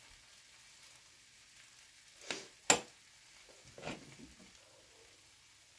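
A wooden spatula working through a nonstick frying pan of cheese-covered fries: two brief scrapes, with one sharp knock of the spatula between them.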